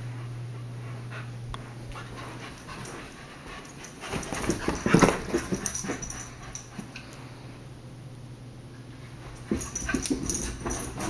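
Two husky puppies play-fighting: bursts of scuffling and puppy vocalizing, the first about four seconds in and another near the end.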